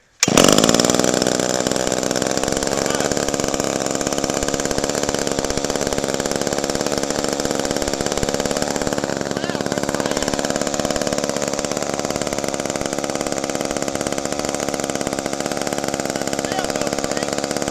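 Old Wizard chainsaw's two-stroke engine catching abruptly and running steadily at idle.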